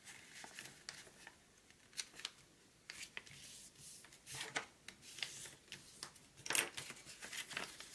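Creased sheet of paper rustling and crinkling as it is folded over and pressed flat by hand, in short scattered rustles, with a louder crinkle a little past halfway.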